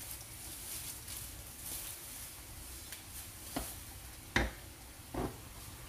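Shrimp paste sautéing in a nonstick wok with a faint sizzle, stirred with a spatula that knocks against the pan three times, about a second apart, in the second half; the middle knock is the loudest.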